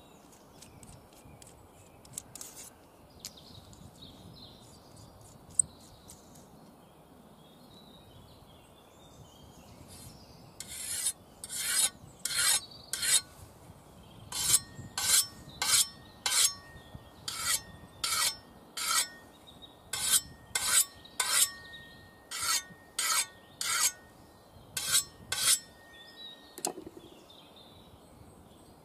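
Hand-held sharpening stone stroked along the steel edge of a Cold Steel Special Forces shovel to knock off a burr. The first third is quiet. Then come short scraping strokes, about two a second, with a brief pause after the first few; they stop a few seconds before the end.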